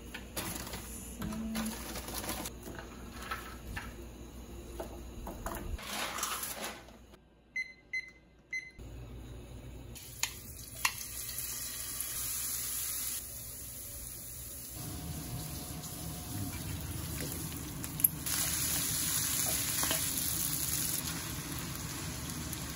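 Kitchen cooking sounds: raw shrimp handled on a wooden cutting board with water boiling in pots, three short electronic appliance beeps about eight seconds in, then liquid poured into a pan of hot oil and garlic, and fusilli with shrimp stirred in the pan with a wooden spoon.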